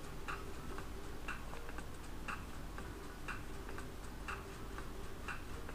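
Ticking clock sound effect counting down the answer time: a sharper tick about once a second, with a fainter tock between.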